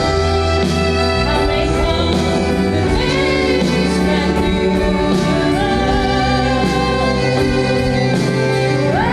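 A song from a Christian stage musical: sung melody over a full instrumental backing, with sustained chords and a steady bass.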